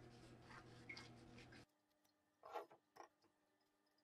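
Near silence with a few faint scrapes and clicks of a paring knife cutting around an avocado and the halves being worked apart. The strongest scrape comes about two and a half seconds in. A faint hiss drops out about a second and a half in.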